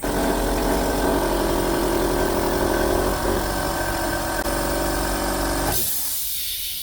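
Tiger GDG35 oil-free silent air compressor running with a loud, steady hum. Near the end, as its intake air filters are pushed in, the hum drops away sharply and a hiss of air is left, much quieter.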